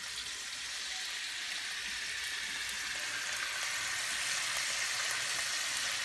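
Raw fish fillets frying in hot canola oil in a nonstick pan: a steady sizzle with small pops.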